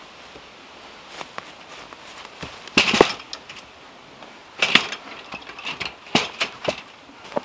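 Sawn ash log rounds being set one by one into a metal wire-mesh garden cart: several separate knocks of wood against wood and the cart's frame, the loudest about three seconds in, with smaller clicks and rattles between.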